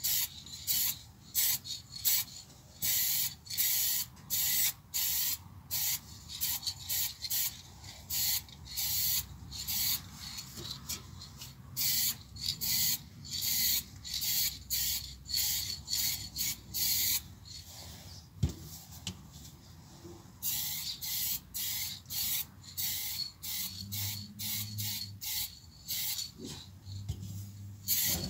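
Aerosol spray can of red paint hissing in short, quick bursts, about two a second, as a base coat goes onto a thin tin panel. The bursts pause about two-thirds of the way through, with a single click, then resume.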